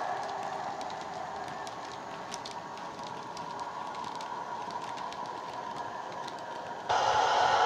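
Model Class 58 diesel locomotive's DCC sound decoder (Howes sound file) playing the engine running through a small speaker, slowly fading, with faint clicks of the passing wagons' wheels on the track. About seven seconds in the engine sound jumps suddenly louder.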